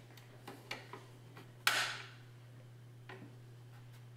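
Flat-blade screwdriver prying at small plastic access covers on a car's rear trim: a few light ticks, then a sharp plastic snap about two seconds in as a cover pops open, and another small click near the end. A steady low hum runs underneath.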